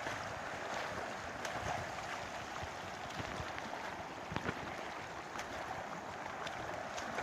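Water rushing steadily in a flowing wadi, with scattered faint clicks over it.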